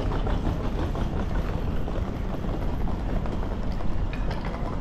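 Footsteps of a person walking, over a steady low rumble.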